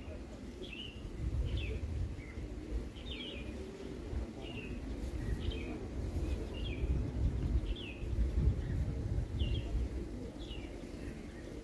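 A bird chirping over and over, short high calls about one or two a second, over a low rumble.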